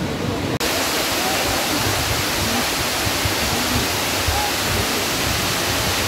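Dudhsagar Falls, a tall waterfall, pouring down a rock face: a steady rush of falling water that cuts in suddenly about half a second in.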